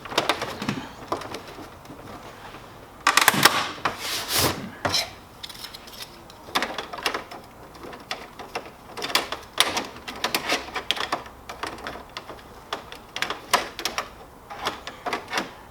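Plastic printer covers and panels being handled and snapped into place: irregular clicks, knocks and rubbing, coming in several clusters of clatter.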